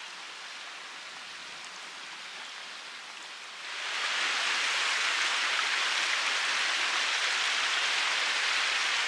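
Steady rush of flowing water, like a mountain stream, growing louder about four seconds in and then holding steady.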